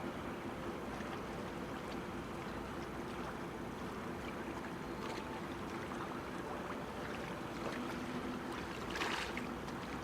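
Harbour ambience at a breakwater: a steady wash of water with a faint low hum under it, and a brief louder rush about nine seconds in.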